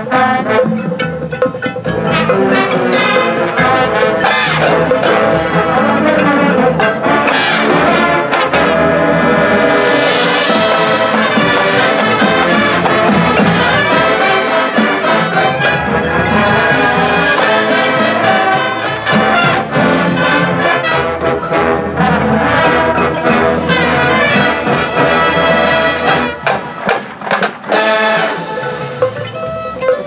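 Marching band playing a loud, full passage led by the brass section, with a few sharp accented hits near the end.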